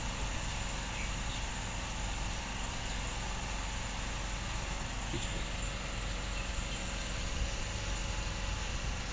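Steady background hiss with a low hum, even in level, with no distinct knocks, drips or other events standing out.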